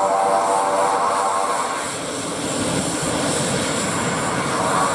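Basler BT-67, a DC-3 converted to twin Pratt & Whitney PT6A turboprops, with its engines running as it rolls along the ground: a droning, pitched propeller whine. The whine fades about two seconds in, and a deeper rumble then grows.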